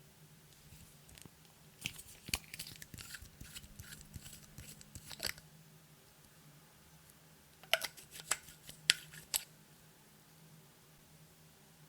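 Sharp clicks and crackles of small hard objects being handled, in two clusters: one about two seconds in, lasting a few seconds, and a shorter one of a few loud clicks near eight seconds.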